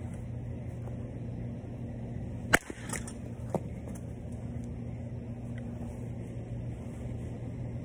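Softball bat hitting a softball off a batting tee: one sharp crack about two and a half seconds in, followed by two fainter knocks. A steady low hum runs underneath.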